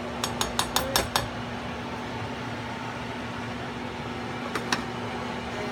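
A serving spoon tapping against a stainless steel rice pot and a ceramic plate while rice is dished out: a quick run of five sharp taps in the first second, then two more about four and a half seconds in, over a steady background hum.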